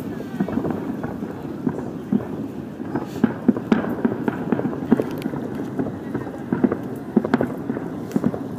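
Fireworks display heard from afar: irregular sharp pops and bangs, several a second at times, over a steady murmur of crowd noise.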